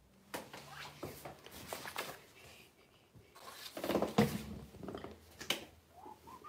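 Irregular knocks, clicks and rustling, as of objects being handled, loudest about two-thirds of the way through, with a short rising whine near the end.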